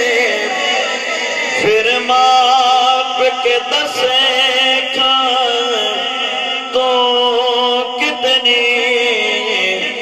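A man singing a Punjabi naat into a microphone over a PA system, drawing out long, wavering, ornamented notes with few clear words.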